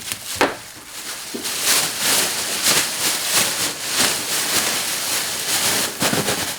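Plastic bag rustling and crinkling as it is swept through the air and closed to trap air inside, a dense crackling that picks up about a second and a half in.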